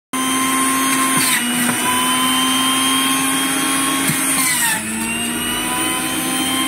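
Electric juicer running with a steady motor whine as pineapple pieces are pressed down its feed chute with the pusher. Its pitch dips briefly about five seconds in.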